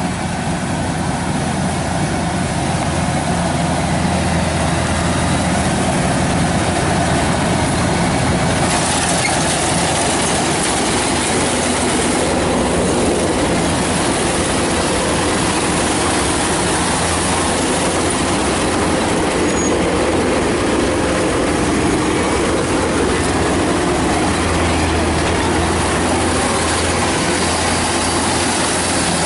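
Kubota DC-105X combine harvester's diesel engine and machinery running steadily under load while harvesting rice, a loud continuous drone and hiss that grows a little brighter about nine seconds in.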